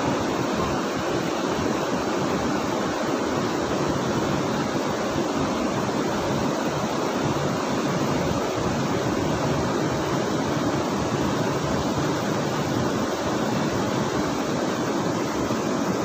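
Steady, even rush of flowing river water.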